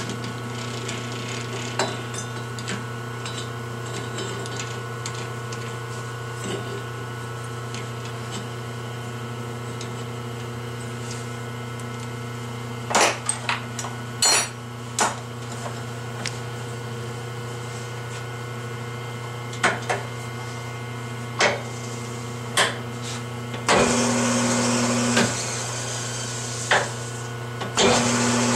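Metal knocks and clanks as a two-stroke 50cc cylinder head on an arbor is fitted into a metal lathe's four-jaw chuck and the jaws are tightened, over a steady hum. Near the end the lathe starts and runs with a steady whirr, stopping briefly and starting again.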